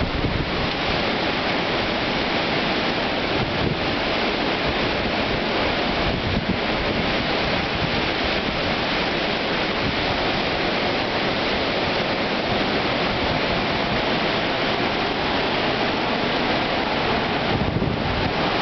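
Hurricane-force wind blowing hard and steadily: a continuous loud rush of noise with no letup.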